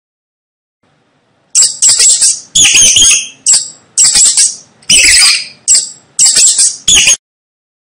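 Mice squeaking: a string of loud, high-pitched squeaks in quick clusters, about two a second. They start about one and a half seconds in and cut off suddenly near the end.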